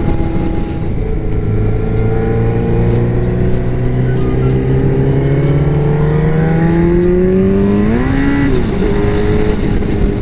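Yamaha R1's inline-four engine pulling hard under acceleration, its pitch climbing steadily, with a brief surge and dip in pitch about eight seconds in before it settles. Steady wind noise runs under it.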